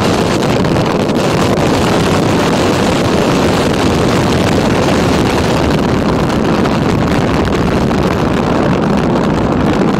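Loud, steady rush of wind buffeting the microphone over the road noise of a moving car.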